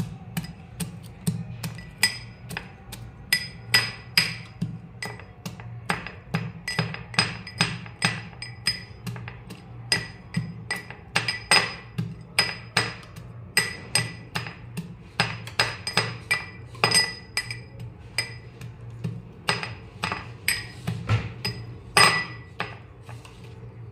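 Metal pestle pounding fried walnuts in a small stainless-steel mortar, about two uneven strikes a second, each with a short metallic ring. The walnuts are being crushed coarsely.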